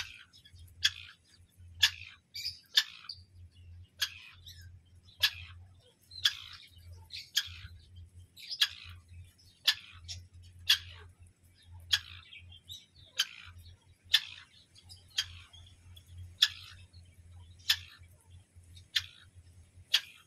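Grey francolin (teetar) calling: short, sharp chirps repeated about once a second.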